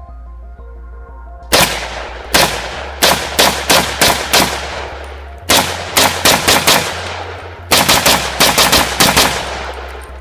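A 300 AAC Blackout AR-15 pistol fired rapidly, about twenty shots in three quick strings, each shot trailing off in echo.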